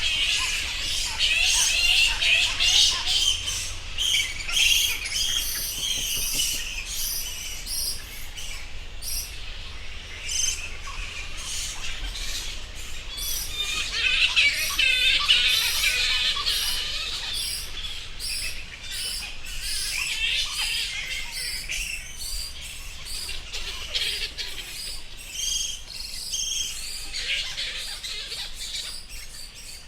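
Bats squeaking and chirping: many short, high calls overlapping in a busy chatter, thickest around the middle.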